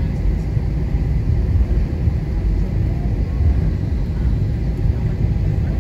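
Airbus A320-200 heard from inside the cabin during its takeoff roll: a steady, deep rumble of the engines and the wheels on the runway.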